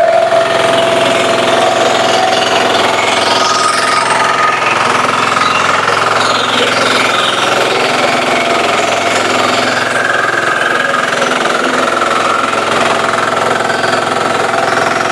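Remote-controlled self-propelled flail mower running and cutting grass: its engine and spinning flail shaft make a loud, continuous rattling din with a steady whine.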